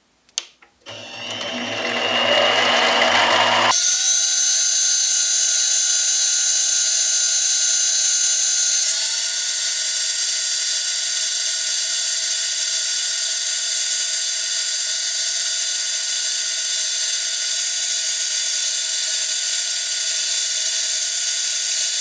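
Central Machinery 7x10 mini lathe: a click about half a second in, then the lathe running as a center drill is fed into the spinning aluminum part. From about four seconds in the sound is sped up six times, turning it into a steady high whine with hiss, which steps up slightly in pitch about nine seconds in.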